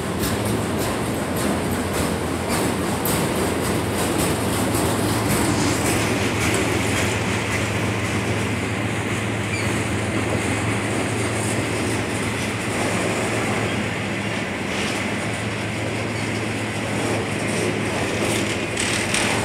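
Freight train of autorack cars rolling past close by: a steady rumble of steel wheels on the rails, with rapid clicking over the rail joints in the first few seconds that then evens out into a continuous roar.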